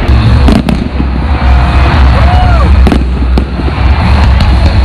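Aerial fireworks shells bursting: several sharp bangs over a steady low rumble, with a short rising-and-falling whistle about halfway through.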